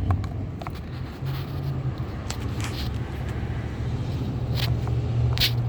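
Scattered light plastic clicks and snaps as small trim covers on a car's rear door panel are pried open with a small flathead screwdriver, over a steady low hum.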